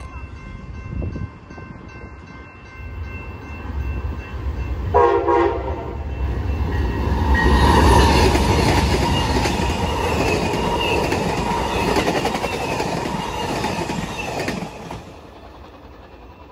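Amtrak passenger train led by a GE P42DC Genesis diesel locomotive passing at speed. A grade-crossing bell rings at first, a short horn blast sounds about five seconds in, then the train goes by with a loud rush of wheels on rail for about nine seconds, stopping fairly suddenly near the end as it clears.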